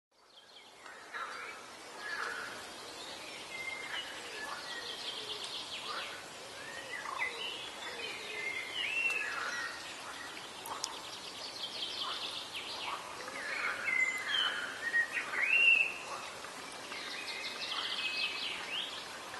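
Several songbirds singing at once, overlapping whistles, chirps and rapid trills, fading in at the start.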